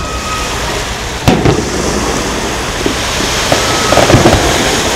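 Aerial fireworks shells bursting: one sharp boom about a second in, then a few smaller bangs near the end.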